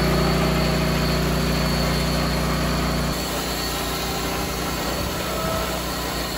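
Lucas Mill portable swing-blade sawmill running, its engine driving the circular blade through a eucalyptus log with a steady drone. About three seconds in the hum changes and drops a little in level.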